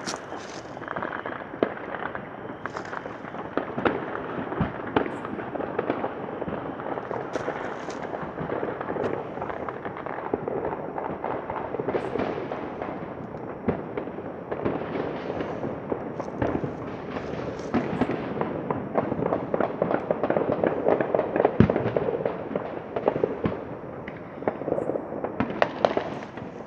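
A dense, unbroken barrage of fireworks and firecrackers crackling and popping, mixed with gunshots from small- and large-calibre guns, some of them automatic fire. It grows busiest and loudest about three quarters of the way through.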